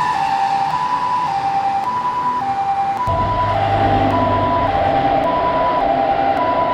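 Japanese railroad crossing warning signal sounding: an electronic alarm alternating evenly between a higher and a lower tone, each held about half a second. About three seconds in, a low rumble joins it.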